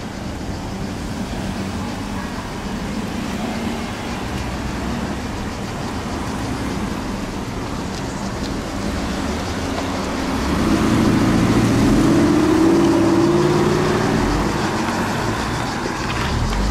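Cars driving past at low speed, a steady traffic noise. About ten seconds in, a car engine close by grows louder and rises in pitch as it accelerates, then fades.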